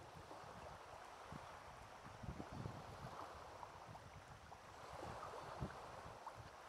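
Faint wind on the microphone over calm water lapping at a pebble shore, with a few soft low thumps scattered through.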